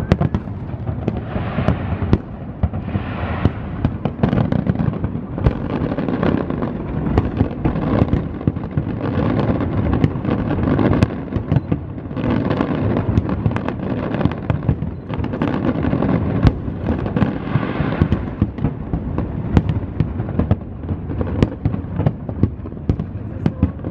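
Aerial fireworks bursting in a dense, continuous barrage: many sharp bangs in quick succession over a steady rumble.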